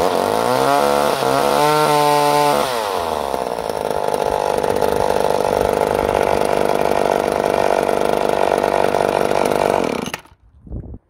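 McCulloch Power Mac 6 chainsaw's 32.8cc two-stroke engine revving up and holding a high whine for about two seconds, then dropping back to a steady lower running speed. The engine cuts off suddenly near the end, and a short knock follows.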